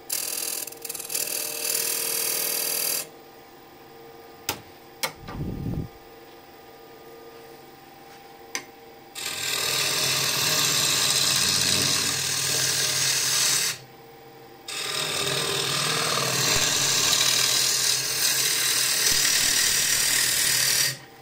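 A turning tool cutting into a large spinning wooden disc on a wood lathe, shaping a decorative bead: a loud rasping hiss of the cut for about three seconds at the start, then again from about nine seconds on, with a short break near fourteen seconds. In the gaps the lathe runs with a steady hum, and there are a few sharp clicks and a low thump around five seconds.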